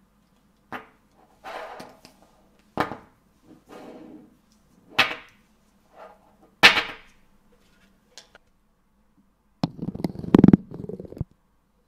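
Small 5 mm magnetic balls clicking sharply as they snap onto one another, with single clicks and short clusters every second or so, then a louder, longer rattle of clicks about ten seconds in.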